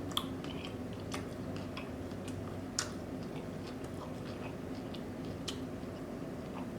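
Close-miked chewing of food, with scattered soft mouth clicks and smacks.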